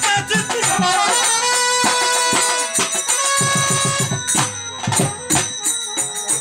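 Live Bengali jatra folk band music: a trumpet plays long held melody notes over a steady drum beat and jingling hand percussion.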